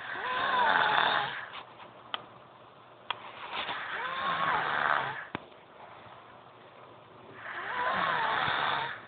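A girl snoring loudly: three long rasping snores about four seconds apart, each carrying a whistling tone that rises and falls in pitch.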